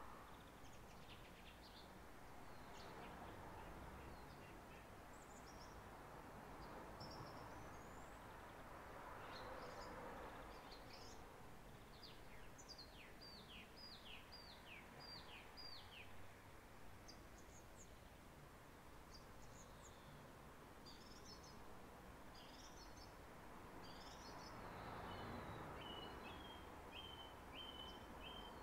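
Faint birdsong: scattered high chirps, a run of about seven quick falling notes around the middle, and a row of short repeated notes near the end. Beneath it is a soft rush of wind that swells twice.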